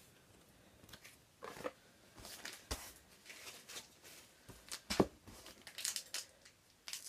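Plastic trading card pack wrapper crinkling and cards being handled, with scattered short rustles and a few sharp clicks, the sharpest about five seconds in.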